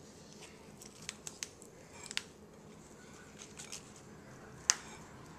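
Faint crisp crackles and clicks of romaine lettuce leaves being folded and pressed into a wrap by hand, with a single sharp click near the end, the loudest sound.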